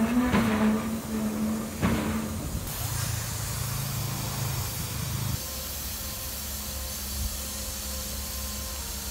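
Small narrow-gauge locomotive standing on a turntable, hissing steadily under a low hum. A couple of metallic knocks come in the first two seconds, and the hum drops to a quieter level about halfway through.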